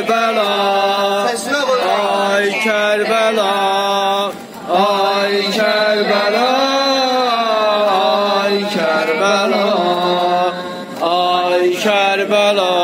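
A man's voice chanting a Shia lament for Karbala in long, drawn-out melodic phrases, with a short pause for breath about four seconds in.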